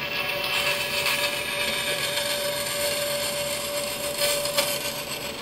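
Bandsaw fitted with an aluminum-cutting blade sawing through aluminum stock: a steady whine over the hiss of the cut, with a couple of sharp clicks near the end.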